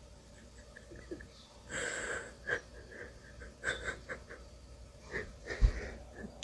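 A series of short wheezy, breathy sounds, with a loud thump about five and a half seconds in.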